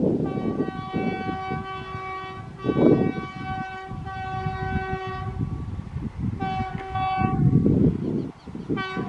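The air horn of a WAP7 electric locomotive sounds a long blast of about five seconds, a shorter blast of about a second some six and a half seconds in, and a brief toot at the end. Under the horn is the low rumble of the approaching train.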